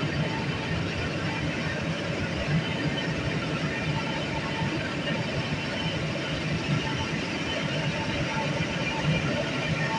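Underground plant-room machinery, such as chillers, pumps and boiler equipment, running with a steady, even hum.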